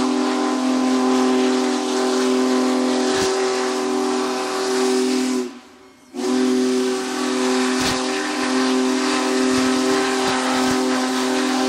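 Chime steam whistle of the Union Pacific 4014 Big Boy locomotive blowing long blasts, a chord of several tones over steam hiss. It breaks off briefly about halfway through, then sounds again.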